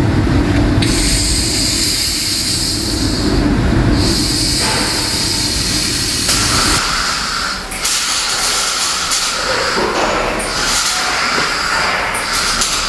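Truck-cab repair shop noise: a loud hiss that starts and stops several times, over a low rumble that drops away about halfway through.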